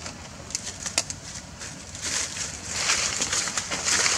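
Dry leaf litter crackling and rustling under footsteps: a few sharp separate crackles in the first second, then denser, louder crackling from about two seconds in.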